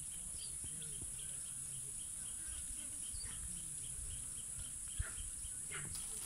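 Outdoor woodland ambience: a steady high-pitched insect drone, a short chirp repeating about four times a second, and a few faint bird calls, with a single click about five seconds in.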